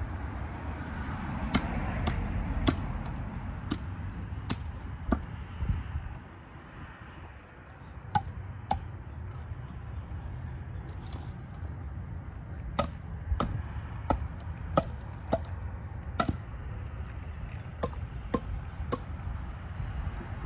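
Axe chopping small branches off cherry logs: a string of sharp, uneven blows, roughly one a second, with a couple of short pauses.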